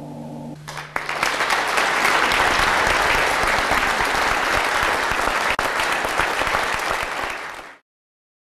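A male vocal ensemble's held final chord ends within the first second, and the audience in the church breaks into applause that carries on steadily and then cuts off abruptly near the end.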